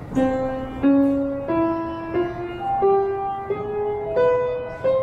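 Upright piano played one note at a time: a major scale (sa re ga ma pa dha ni sa) climbing an octave in eight even steps, about two-thirds of a second apart, each note struck and left to ring.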